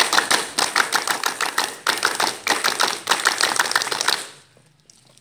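A group of scouts clapping their hands: a dense run of sharp claps that stops about four seconds in.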